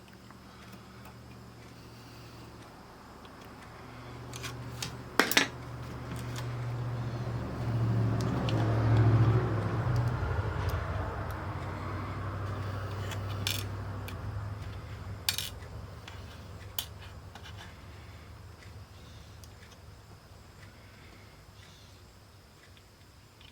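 Small metal parts and tools clicking and clinking as they are handled on a workbench, with a few sharp clicks. Under them a low hum and rustle swell to a peak about a third of the way through, then fade.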